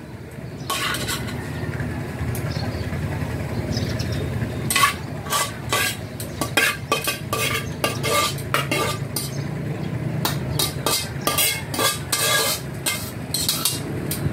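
A utensil scraping and knocking against the inside of a wok as stir-fried vegetables are pushed out onto a plate. The clicks are irregular, sparse at first and coming thick and fast from about a third of the way in, over a steady low hum.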